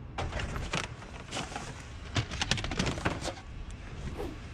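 Clatter of items being handled and shifted in a dumpster: a run of sharp knocks and clicks, thickest in the middle.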